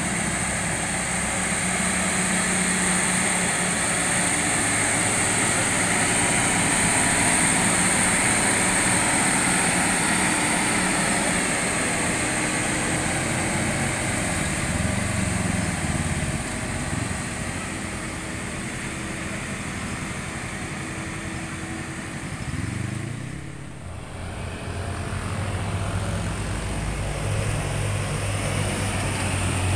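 Heavy diesel tanker trucks climbing a hill, their engines running under load with the pitch rising and falling, and motorcycles passing. About three-quarters through, the sound dips briefly, then a second truck's engine comes in.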